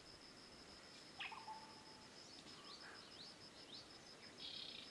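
Faint wild ambience: an insect trilling steadily in fast, even pulses, with birds calling over it. The clearest call is a downward sweep about a second in, followed by a few short falling chirps and a brief buzzy note near the end.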